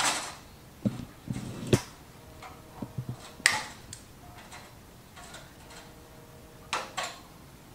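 Wire cutters snipping through a fluorescent light fixture's wires: a series of sharp clicks, several in the first two seconds, a strong one about three and a half seconds in, and a pair near the end.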